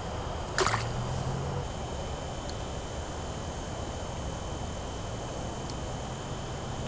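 One sharp click about half a second in as the ice-fishing flasher unit is handled, over a steady outdoor hiss; two faint ticks follow later.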